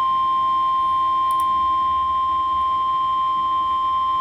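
NOAA Weather Radio warning alarm tone: one steady, unbroken high tone of about 1050 Hz, the attention signal that announces a warning message is about to be broadcast.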